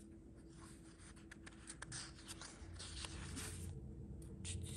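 Sticker sheets being handled and laid down on a desk: quiet paper rustling with scattered light ticks and taps.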